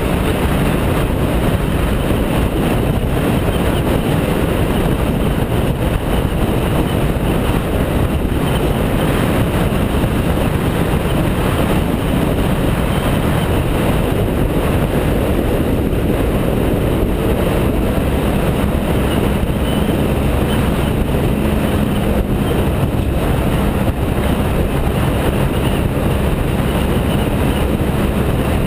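BMW F650GS motorcycle cruising at a steady speed: engine running under a constant rush of wind and road noise on the GoPro microphone. A steady engine hum comes through more clearly from a little past halfway.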